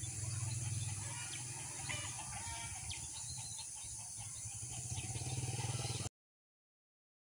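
Birds chirping in short calls over a steady low hum and a high hiss of morning countryside ambience. The sound cuts off abruptly about six seconds in, leaving silence.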